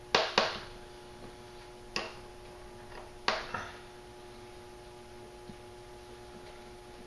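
Sharp clicks and taps from hands handling small tools and cord on a work surface: a quick pair, a single click, then another pair. A steady faint hum runs underneath.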